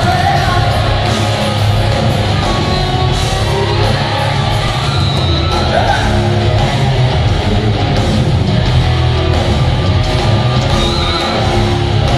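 Heavy rock band playing live at full volume: distorted electric guitars, bass and drums, with a sung lead vocal.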